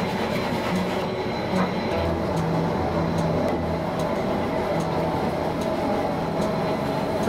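Steady rumbling roar of a fired cooking range, with food sizzling in shallow metal trays and faint light clicks of utensils on the metal.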